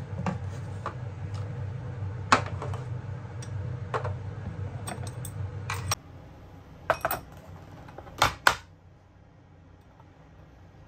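Kitchenware knocking and clinking over a steady low fan hum, which stops about six seconds in. After it, a few sharp clinks of small ceramic dishes being set on a wooden tray.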